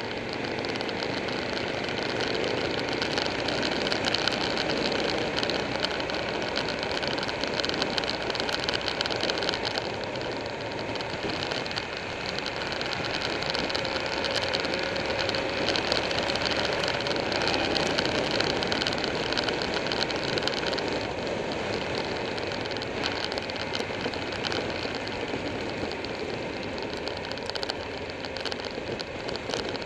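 Buell 1125R motorcycle's V-twin engine running at a steady cruise, its note drifting a little up and down, under a steady rush of wind and road noise picked up by a camera on the moving bike.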